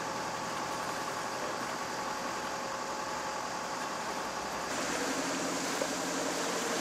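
A boat's engine running steadily under way, with the hiss of wind and water over it; the hiss grows a little louder about two-thirds through.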